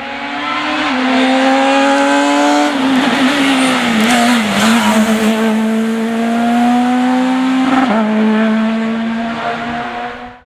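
Rally car engine at high revs, climbing through a gear change about a second in. Around the middle, tyre noise rises as the engine note wavers through a slide, then the engine holds steady under power with another quick shift near the end before the sound cuts off abruptly.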